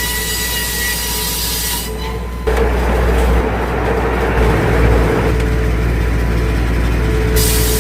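Circular sawmill blade spinning with a steady whine, then about two and a half seconds in it cuts into a spruce log, turning louder and rougher as it saws through the wood.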